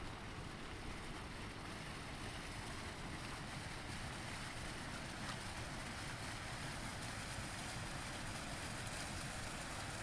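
Steady rush of running water from a snow-covered brook flowing among ice and snow.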